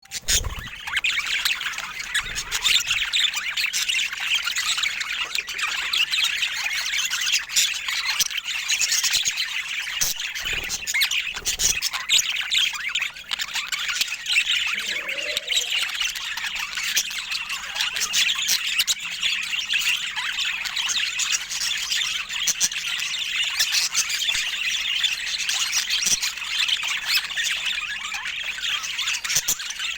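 Budgerigars chattering without pause: a dense mix of fast chirps, warbles and squawks. A few brief low bumps come in near the start and again around the middle.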